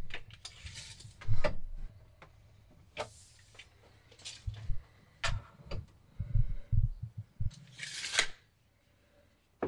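Hands handling tools and small hardware at a wooden bed frame: a run of light clicks, taps and knocks on wood and metal, with two brief rustling or scraping noises, one about a second in and one near the end.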